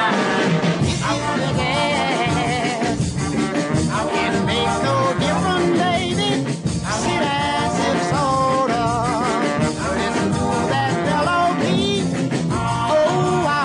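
Music from a 45 rpm single: a singer with a wavering vibrato over a band accompaniment.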